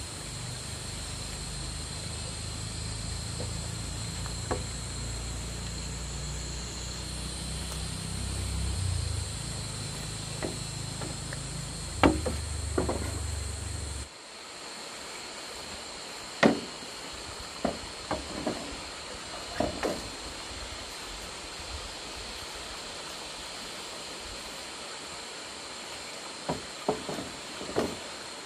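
Hollow knocks of bamboo poles striking one another as they are handled and laid out, coming singly and in short clusters. Under them runs a steady high hiss with a thin whine, and a low rumble that stops abruptly about halfway.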